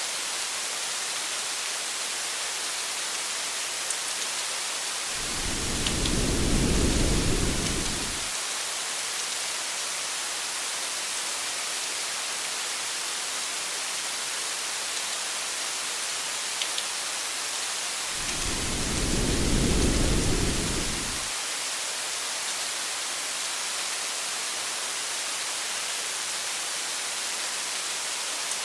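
Steady hiss of rain, with two low rumbles of thunder, each about three seconds long, about five seconds in and again near eighteen seconds.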